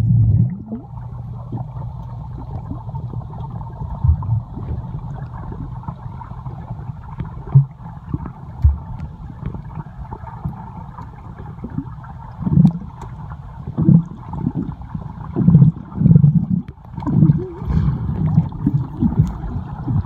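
Underwater pool sound picked up by a submerged phone: a steady muffled rumble with low gurgles and thuds from people holding their breath under the water. The gurgles and thuds come more often in the second half.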